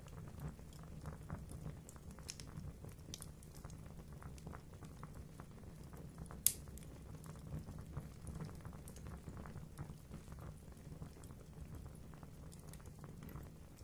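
Fire crackling in a fireplace: a steady low rumble of the flames with frequent small crackles and pops, and one sharper pop about six and a half seconds in.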